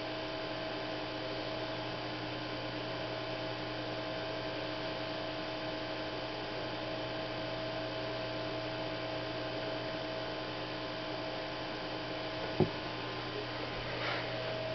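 A steady electrical hum of several constant tones, with one sharp click near the end.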